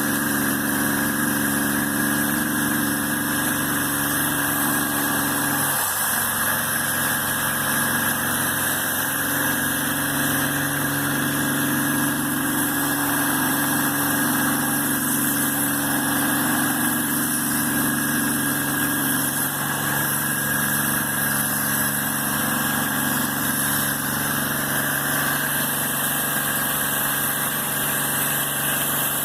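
A motor-driven machine running steadily with a constant hum, and a brief change in its tone about six seconds in.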